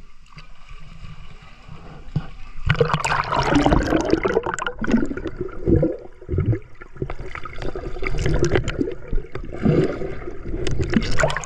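Muffled gurgling and bubbling of swimming-pool water heard with the microphone underwater, starting loudly about two and a half seconds in.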